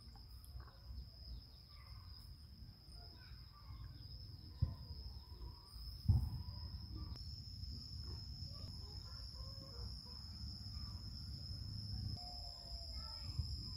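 Garden ambience: a steady high insect drone, with scattered bird calls over a low rumble. Two sharp knocks about four and a half and six seconds in, the second the louder.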